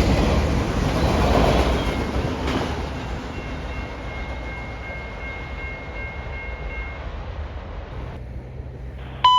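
Freight train rolling past with wheels clacking on the rail joints, its rumble fading steadily as the train draws away, with a thin steady whine for a few seconds midway. Near the end a short electronic beep from a scanner radio comes in, the tone that comes before a trackside defect detector's announcement.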